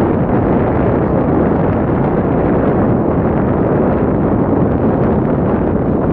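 Strong wind buffeting the microphone: a loud, steady rumble of wind noise, heaviest in the low end.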